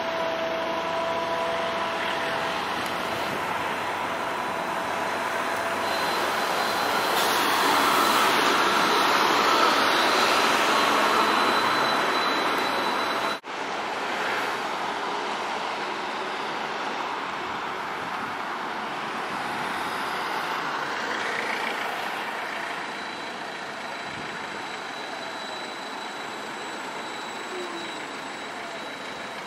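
Trams and road traffic passing on a city street: a steady rush of rolling wheels, tyres and engines, swelling as vehicles pass close, with a faint high steady whine above it. The sound cuts out for a moment about halfway through.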